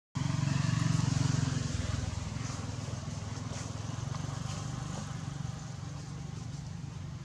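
Low steady rumble of a passing motor vehicle, loudest about a second in and then slowly fading.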